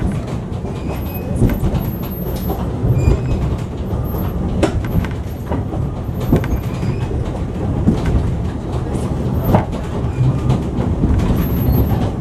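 A narrow-gauge train hauled by Welsh Highland Railway's NG G16 Beyer-Garratt articulated steam locomotive No. 138 rolling past, a steady low rumble with frequent sharp clicks of the wheels over the rails.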